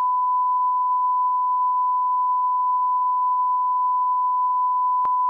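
Broadcast line-up test tone played with colour bars: one steady, unwavering 1 kHz beep, with a brief click about five seconds in.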